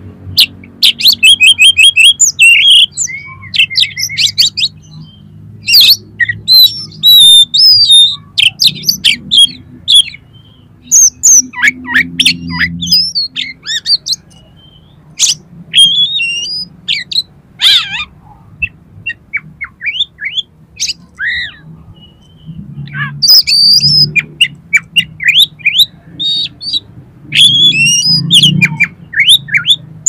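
Oriental magpie-robin (kacer) singing loudly in rapid bouts of varied whistles, chirps and trills, with short pauses between phrases: a full song repertoire of the kind used to provoke other kacer into singing.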